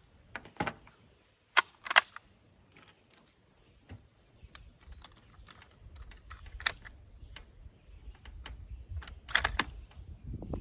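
Sharp metallic clicks and rattles from handling a Carcano cavalry carbine, in irregular runs, with the loudest clicks in pairs near the start and again near the end.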